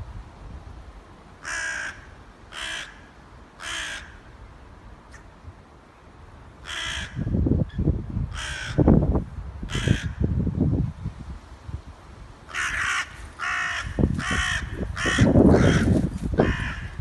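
A crow cawing: short harsh caws, three, then three more, then a quicker run of about seven near the end. A low rumbling noise runs under them from about seven seconds in.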